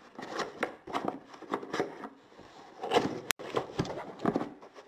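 Recycled-cardboard keyboard box being handled and opened: irregular scrapes, taps and rustles of cardboard, with one sharp click a little past three seconds in.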